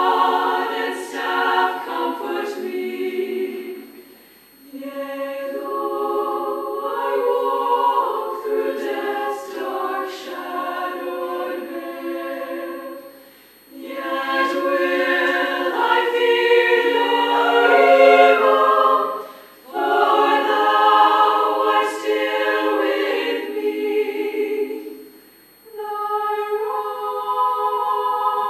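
Women's choir singing a cappella in sustained phrases, with short pauses between phrases about every five or six seconds.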